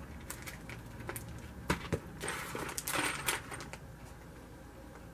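Plastic bags of cast lead bullets being handled: a few sharp clicks as the bullets knock together, then a stretch of plastic crinkling with more clicks in the middle.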